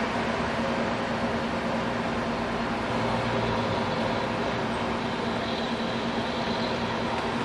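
Steady mechanical droning noise with a constant low hum, unchanging throughout.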